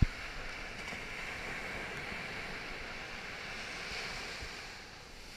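Surf breaking and washing up a sand and shingle beach: a steady hiss of waves that eases a little near the end. A single brief low thump right at the start.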